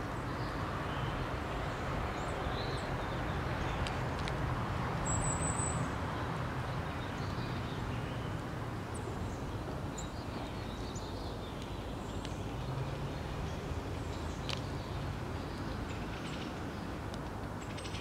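Steady low outdoor background rumble and hiss, with faint, short chirps of small songbirds at a feeder scattered through it and a few light clicks.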